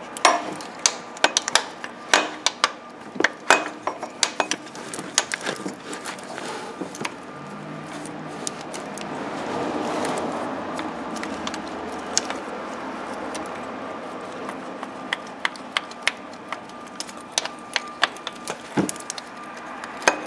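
Irregular metallic clicks and clinks of a serpentine belt tensioner being worked back and forth by hand to free it from its locating pin. A steadier noise swells and fades around the middle.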